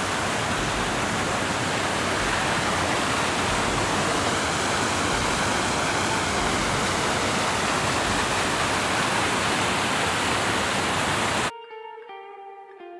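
Steady rush of a creek cascading over rocks. It cuts off abruptly near the end, replaced by plucked guitar music.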